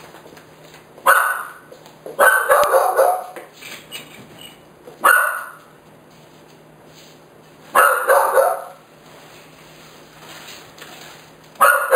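A dog barking repeatedly, single barks and short runs of barks every couple of seconds.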